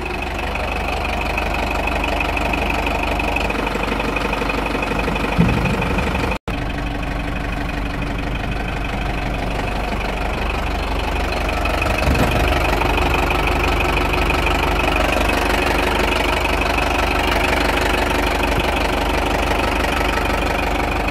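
Tata LPT 407 truck's diesel engine idling steadily.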